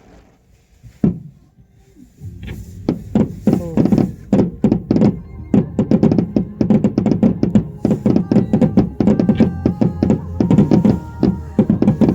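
Fireworks going off: a single bang about a second in, then from about two seconds a rapid barrage of bangs, several a second, with music playing underneath.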